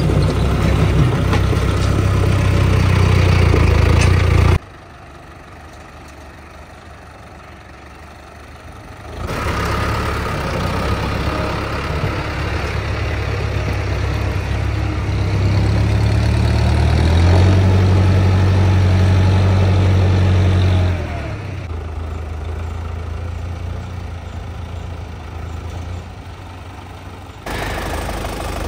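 Tractor diesel engines running, mostly idling steadily, in several clips joined by abrupt cuts. Part way through, the engine note steps up and grows louder for a few seconds under load, then drops back.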